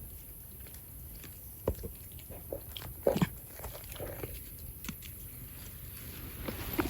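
Vervet monkeys' mouth sounds: soft, irregular smacks and clicks, a few at a time with short pauses between.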